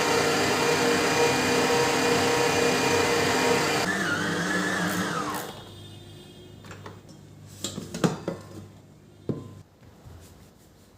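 Bed vacuum cleaner's motor running with a steady whine. It is switched off about four seconds in and winds down with a falling whine, followed by a few clicks and knocks as it is handled.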